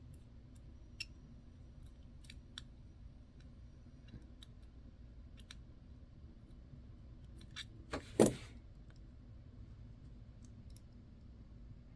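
Small scattered metallic clicks of tools and parts being handled on a watch, with one louder knock and clatter about eight seconds in.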